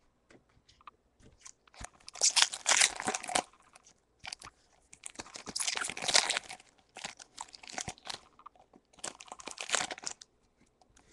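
Foil booster-pack wrapper crinkling and tearing open in the hands, in three spells of crinkling with lighter handling noises between.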